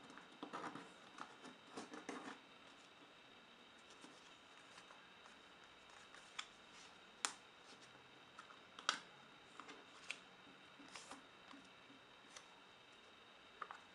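Faint handling of a small sheet of origami paper as it is folded into a paper airplane: a spell of soft rustling and crinkling in the first couple of seconds, then scattered short clicks and ticks as the folds are pressed, two of them sharper, about seven and nine seconds in.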